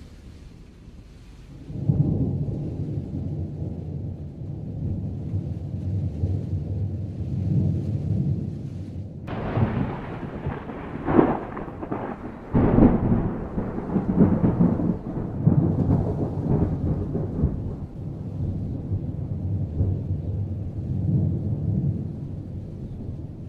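Thunder rolling: a deep rumble starts about two seconds in, breaks into sharper cracks near the middle, then rolls on and slowly fades toward the end.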